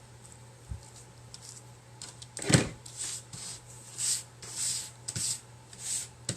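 Handling noise from craft materials being worked on a tabletop: one loud knock about two and a half seconds in, then several short scraping rustles.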